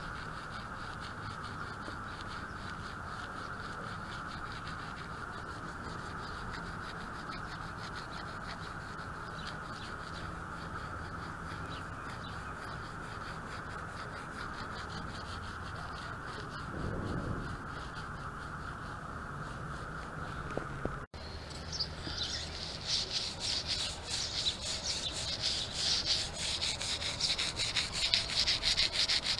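Bristle brush scrubbing along stained window trim, a rapid run of scratchy strokes that grows louder in the last several seconds. Before that there is a steady high hum with only faint brushing.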